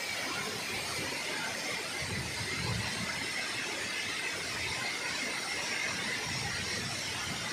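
Steady rushing hiss of rain and water pouring off a rock cave overhang, with a faint high tone running through it and low rumbles about two seconds in and again near the end.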